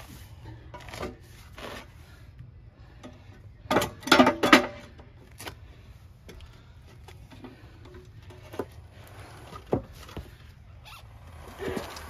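Scattered knocks and metal clanks as a tire is worked by hand on a steel wheel and a manual steel bead breaker's lever and foot are set against the sidewall. The loudest are a few close together about four seconds in, over a low steady hum.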